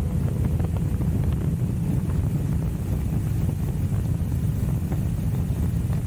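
Royal Enfield Himalayan sidecar outfit's single-cylinder engine running steadily under way, a low rumble with wind buffeting the microphone.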